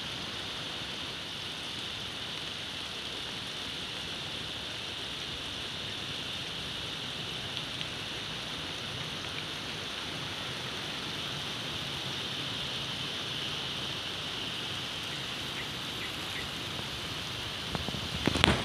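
Water spraying steadily from a garden hose and pattering onto plants and soil, a constant rain-like hiss. Near the end there is a sharp click with a couple of small knocks.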